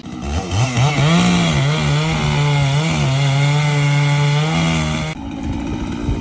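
Two-stroke chainsaw revving up to full throttle about half a second in, running high with its pitch dipping and recovering, then dropping back to idle about five seconds in.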